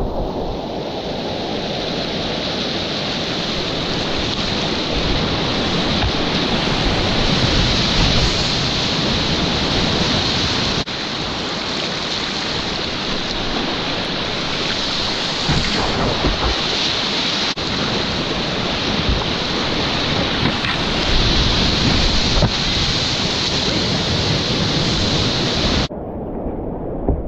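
Whitewater rapids rushing over steep bedrock slides, heard from inside the current: a loud, steady wash of churning water. About a second before the end it cuts sharply to the quieter, duller sound of calmer water.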